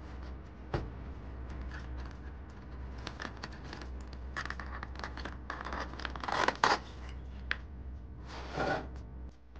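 Clear plastic toy packaging handled and pulled open by hand: crinkling and scraping of the stiff plastic box with scattered clicks, busiest and loudest a little past halfway, with a short rustle near the end.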